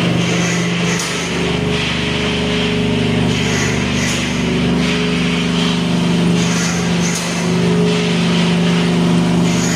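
Roaster machine running: a steady motor hum, with a hiss that swells and fades every second or two as it turns.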